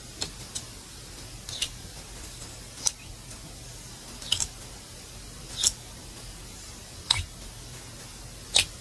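Slime being handled, giving short, sharp popping clicks about every second and a half, eight in all, the last one the loudest, over a faint steady hum.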